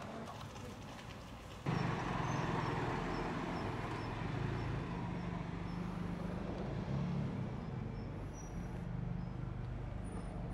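A quiet stretch, then about two seconds in an abrupt change to outdoor ambience: a motor vehicle engine idling with a steady low hum, and faint high chirps repeating about twice a second.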